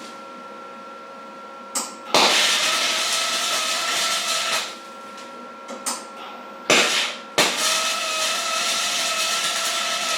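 Electric welding on steel flat stock, two runs of about two and a half seconds each that start and stop abruptly, with a steady hissing noise while the arc is struck.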